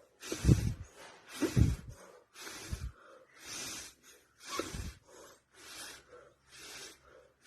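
A woman breathing hard in and out through the mouth during steam inhalation, one breath sound about every second. The first few breaths are the loudest.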